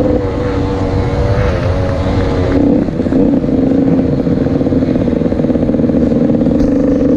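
Motocross bike engine running hard at steady revs while riding a sandy track, heard from on board the bike. The note dips briefly and settles slightly lower about two and a half seconds in.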